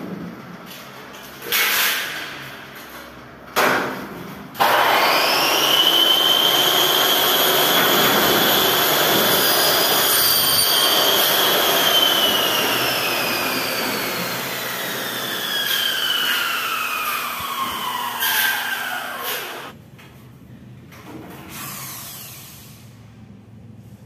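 Electric power tool motor: two short bursts, then a long run of about fifteen seconds whose whine climbs quickly, holds, and then slowly sinks in pitch before it stops.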